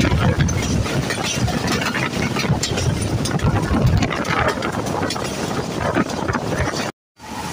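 Wheels of a moving passenger train running on the rails, a steady rumble with quick irregular clatter and knocks from the coaches. The sound drops out for a moment near the end.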